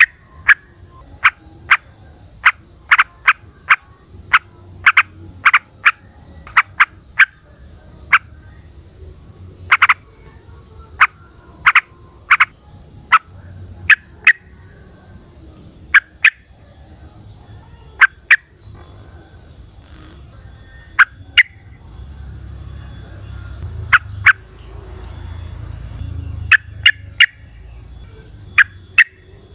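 Yellow-vented bulbul (trucukan) singing: loud, sharp, very short notes in quick clusters with pauses between them. Insects trill steadily behind it in pulsing high runs, with a continuous high hum.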